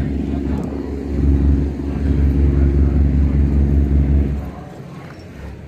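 A large engine running steadily with a deep hum, which cuts off about four and a half seconds in.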